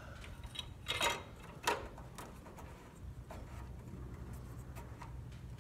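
Hand-handling noises in a mower's engine bay: scattered light clicks and two short, louder scrapes about one and nearly two seconds in, over a low steady hum.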